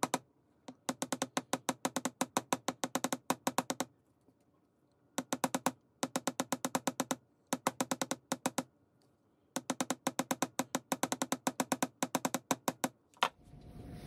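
Chasing hammer tapping copper wire on a steel bench block: runs of quick, ringing metallic taps, about eight a second, broken by short pauses. The wire hook clasp is being flattened for a hammered look and work-hardened.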